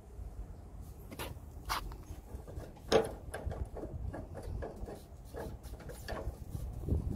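Scattered clicks and light knocks, as of things being handled, over a low background rumble; the loudest knock is about three seconds in.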